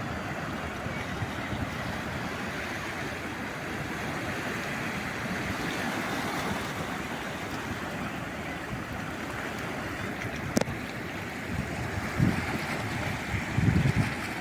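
Calm sea waves washing onto the shore, a steady rush of surf. A sharp click sounds about two-thirds of the way in, and a few low bumps come near the end.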